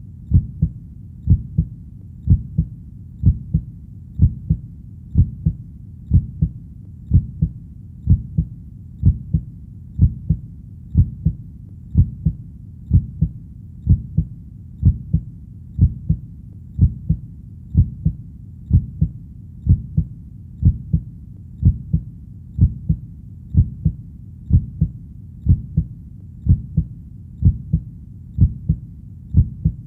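Heartbeat, a steady lub-dub double thud repeating about once a second, deep and dull.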